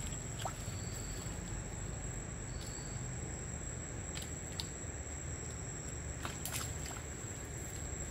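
Quiet riverbank ambience: a steady low rumble with a thin steady high tone, and a few faint clicks scattered through it.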